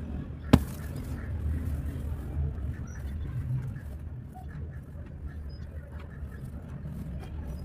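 A piece of dry cement snapping with one sharp crack about half a second in, then a few faint crumbling clicks, over a low steady background rumble.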